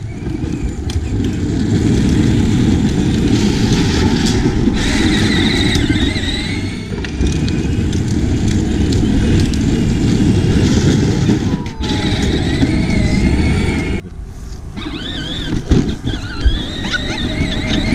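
Battery-powered Case IH ride-on toy tractor driving over concrete and grass: its hard plastic wheels rumble loudly, with a wavering high whine from the electric drive. The sound drops off abruptly twice in the second half.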